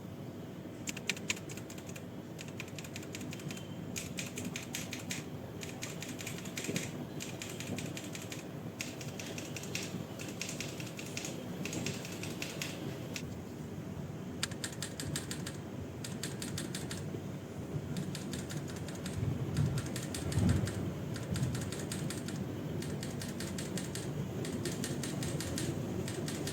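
Mechanical keyboard with Tecsee Jadeite linear switches (UHMWPE stem and top housing, polycarbonate bottom housing) being typed on in quick runs of keystrokes with short pauses between. It plays over a steady low background hum, with a few deeper thumps about three-quarters of the way through.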